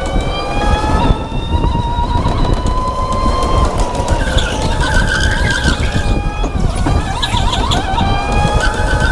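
Indoor electric go-kart at speed: the motor's whine rises in pitch as it accelerates, drops off about three and a half seconds in, and climbs again near the end, over a constant low rumble. Tyres squeal through corners about halfway through and again at the end.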